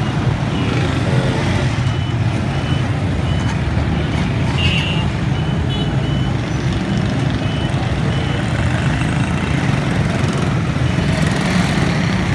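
Busy street traffic with a steady low engine rumble. A row of short high beeps sounds through the first few seconds, and a horn-like tone about five seconds in.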